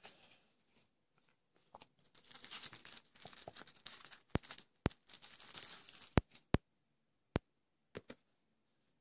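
Phone box packaging being unwrapped: plastic wrap crinkling and tearing, broken by several sharp clicks and taps.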